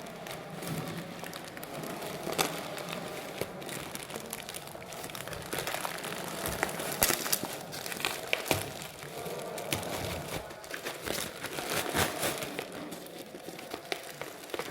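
Plastic parcel packaging crinkling and rustling as it is handled and unwrapped, with many sharp crackles and a few louder snaps.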